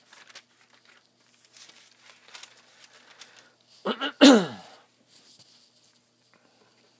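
Thin Bible pages being turned, a soft papery rustling and flicking in a small room. About four seconds in comes one short, loud vocal sound that falls in pitch.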